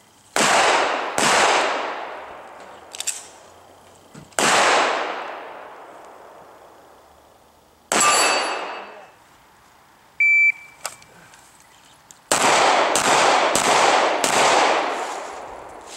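Handgun shots at steel targets: two shots in quick succession, then single shots a few seconds apart, with the faint ring of bullets striking steel plates. About two-thirds of the way through, a shot timer gives a short high beep, and a rapid string of about five shots follows near the end.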